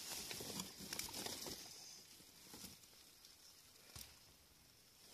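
Tent fabric rustling as hands work at the tent's roof, with several light clicks and taps, most of them in the first two seconds and one more about four seconds in.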